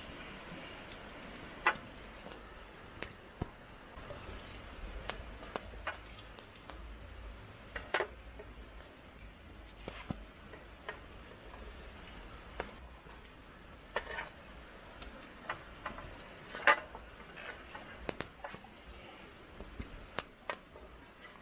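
A knife hand-carving a wooden spoon: irregular short cuts and clicks of the blade in the wood, with a few louder strokes.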